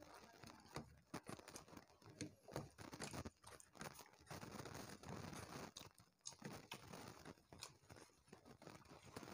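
Faint, irregular sounds of eating by hand: fingers mixing and squeezing rice with fish curry on ceramic plates, with soft clicks and chewing.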